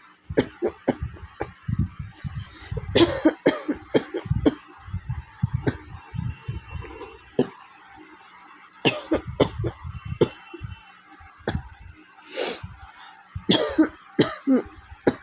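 A woman coughing in repeated fits, each of several quick coughs, with brief pauses between the fits. It is a real cough from a heavy cold with a congested throat.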